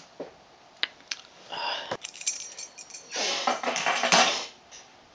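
Handling noise: a few sharp clicks, then crinkling and rustling as small items are picked up and moved about, the loudest stretch near the middle.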